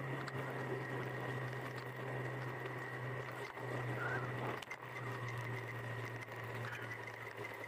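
Motorcycle engine running at a steady low note while riding, with road and wind noise. Two brief knocks come about three and a half and four and a half seconds in.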